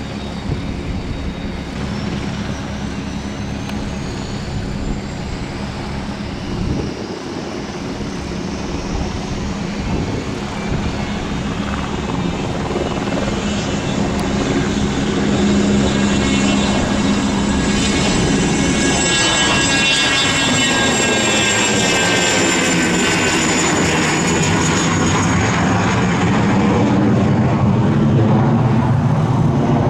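Cessna Citation II/SP business jet's twin Pratt & Whitney JT15D turbofans running with a high turbine whine. The sound grows louder about halfway through and takes on a sweeping, phasing tone as the jet passes close.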